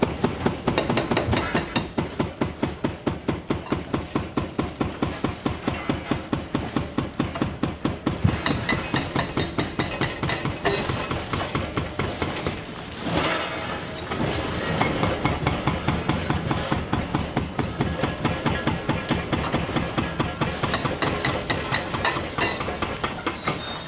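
Hydraulic breaker on a Liebherr R936 excavator hammering concrete, a steady run of about five blows a second. It stops briefly a little past halfway, with a short rush of noise, then starts hammering again.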